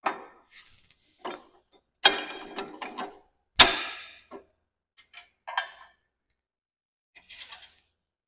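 Steel connecting weldment knocking and scraping against the steel frame and top link of a three-point-hitch backhoe as it is swung into line with a bolt hole. A run of separate metal clanks, some ringing briefly; the loudest comes about three and a half seconds in.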